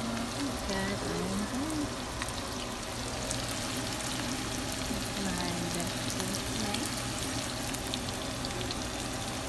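Mixed vegetables sizzling in a frying pan of sauce on the stove: a steady frying hiss with scattered fine crackles.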